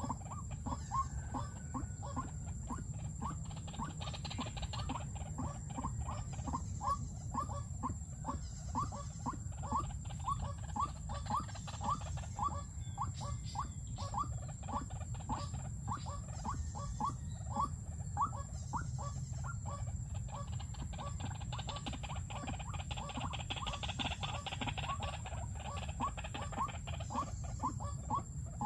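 White-breasted waterhen calling: one short note repeated over and over at an even pace of about two a second, from the caged decoy bird.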